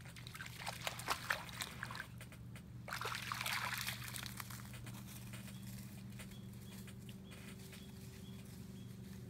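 Small dog wading in shallow lake water at the shore, its paws splashing: a few short splashes in the first two seconds, then a longer wash of water noise about three seconds in.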